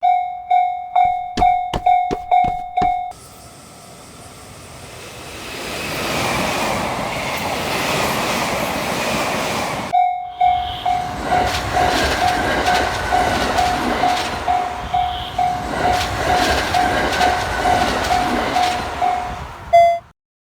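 Japanese railroad crossing warning bell ringing at about two strikes a second, stopping abruptly about three seconds in. A train then passes with a rising rumble and rail noise, and about ten seconds in the crossing bell starts again over the running train until it cuts off near the end.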